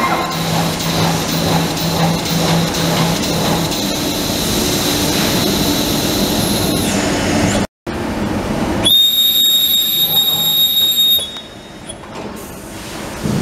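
Trumpf Trumatic 260 Rotation CNC punch press running: a steady mechanical din with a low hum. After a brief cut, a loud high-pitched whine lasts about two seconds, then the noise drops away.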